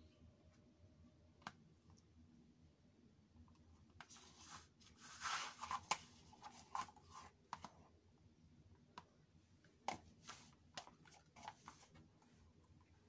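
Faint clicks, taps and rubbing of glossy plastic jelly flats as bare feet slip in and out of them and set them down on a wood floor, with a busier patch of rubbing and clicking about five seconds in and scattered single clicks after.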